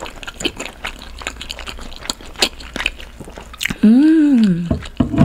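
Close-miked chewing of a mouthful of soft, boneless spicy braised monkfish: wet squishy mouth sounds and many small clicks. About four seconds in comes a loud closed-mouth 'mmm' hum of enjoyment that rises and then falls in pitch.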